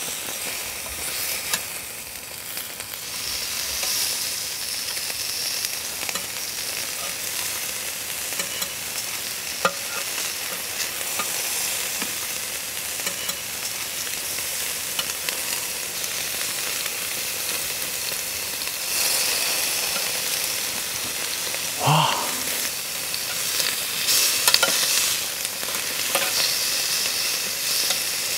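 Slices of 1++ grade Korean hanwoo beef sizzling steadily as they are laid on a hot grill grate, with a few light clicks of steel tongs.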